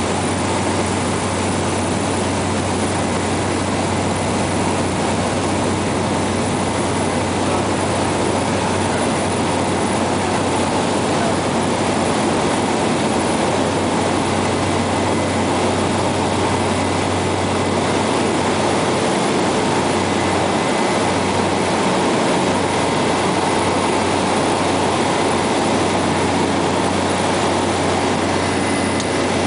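Cessna 208 Caravan's single Pratt & Whitney PT6A turboprop engine and propeller, heard from inside the cabin as a steady, loud drone with a low hum under it, during the takeoff roll and climb-out.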